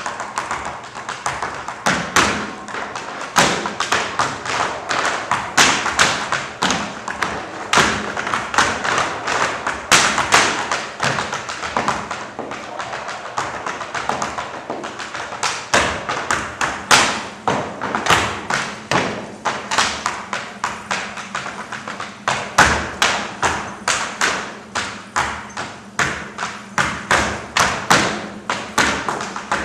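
Tap dancing: metal-tipped tap shoes striking a stage floor in fast, shifting rhythmic runs of many taps a second, with louder accented stamps.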